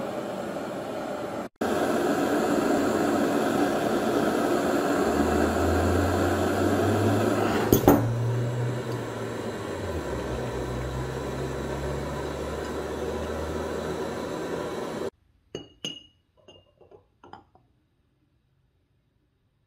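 A steady whirring machine noise with a low hum joining partway and a sharp click about eight seconds in. It cuts off abruptly, and a few light clinks follow as a wire-hung metal part knocks against a glass jar.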